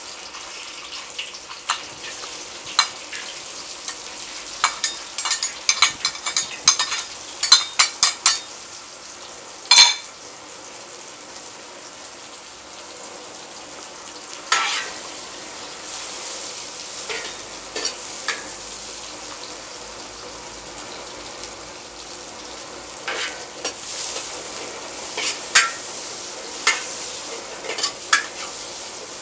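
Vegetables sizzling as they go into the hot oil of a hand-hammered wok, the sizzle setting in right at the start. They are stir-fried with a metal spatula and ladle that scrape and clank sharply against the wok, most often a few seconds in and again near the end.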